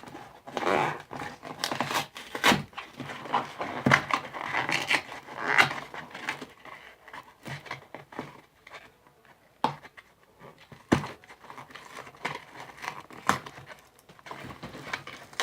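A paper baking soda package being torn and crinkled open at the top, with scratchy rustling over the first several seconds, then scattered clicks and taps that thin out.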